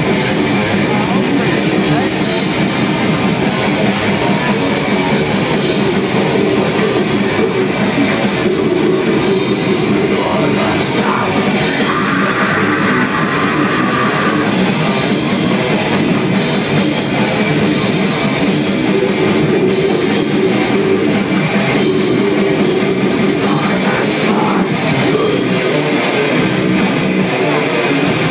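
Death metal band playing live at full volume: distorted electric guitars, bass and drums in a dense, unbroken wall of sound, picked up by a phone's microphone in the crowd.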